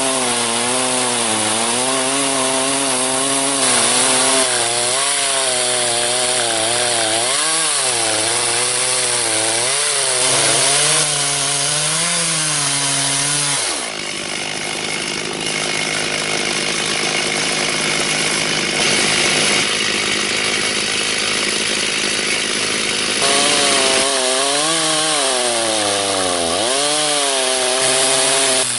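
Stihl chainsaw on a micro chainsaw mill ripping lengthwise through wild black cherry, a hard wood, on a freshly touched-up chain, its engine pitch wavering up and down under load. About halfway in the sound changes abruptly and the wavering stops, then the wavering cutting sound returns near the end.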